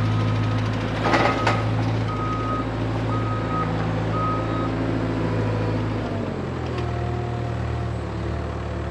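Skid steer engine running with its backup alarm beeping about once a second as it reverses; the beeping stops a little before halfway. A brief loud noise comes about a second in, and the engine drops toward idle about six seconds in.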